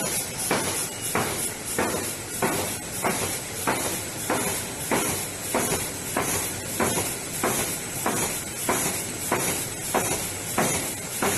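Folder-gluer machine for crash-lock-bottom boxes running, with a steady hiss and a regular knock about every 0.6 seconds.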